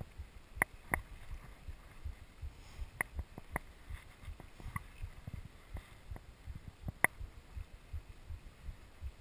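Rigid singlespeed 29er mountain bike jolting over bumpy grass: irregular sharp rattling clicks and knocks over low rumbling thumps, with one louder knock about seven seconds in.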